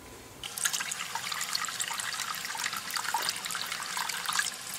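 Water running from a tap into a sink and splashing, starting suddenly about half a second in.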